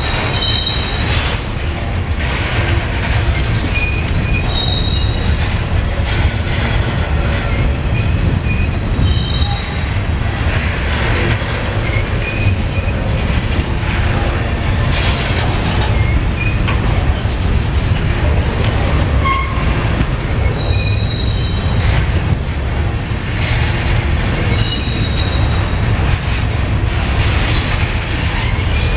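Covered hopper cars of a long freight train rolling past: a steady low rumble of steel wheels on rail, with short high-pitched wheel squeals coming and going throughout.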